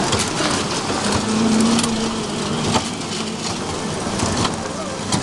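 Small electric kiddie-ride trucks rolling around a metal-plated track: a steady rumbling noise with scattered clicks and knocks, and a brief low hum a little over a second in.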